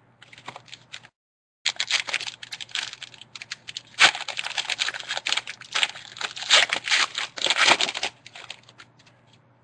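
Foil trading-card pack being torn open and the cards handled: a dense, irregular crinkling and crackling that starts about a second and a half in and fades out near the end.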